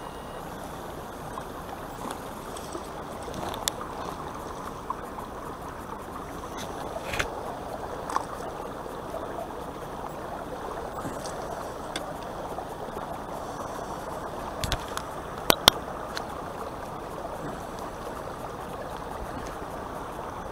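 Steady rush of water lapping among shoreline rocks, with a few sharp clicks scattered through it; the loudest is a close pair about fifteen seconds in.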